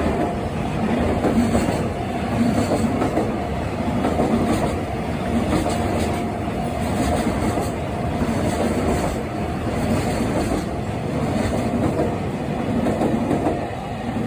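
Freight train of Koki 100-series container wagons rolling past, the wheels clattering over rail joints with a loose rhythm of surges about once a second, under a steady high tone.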